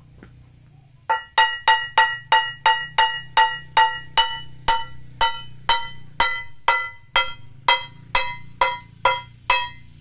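Hammer striking the edge of a thin stone slab to trim it, chipping off flakes: about twenty sharp, ringing clinks starting about a second in, about three a second at first and then about two a second.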